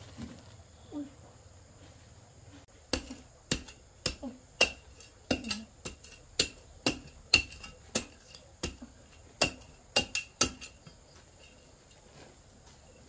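About twenty hard knocks of a tool on something solid, each with a short ringing note. They come irregularly at two to three a second, starting about three seconds in and stopping a couple of seconds before the end.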